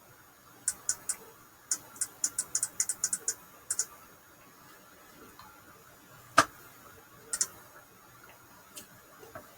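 Computer mouse clicking: quick runs of sharp, light clicks in the first few seconds, then one louder click about six seconds in and a double click a second later.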